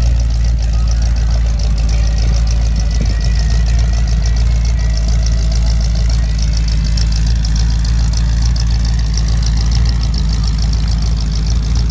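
1955 Pontiac Chieftain's 327 cubic-inch V8 with a four-barrel carburettor, idling steadily through dual Flowmaster mufflers.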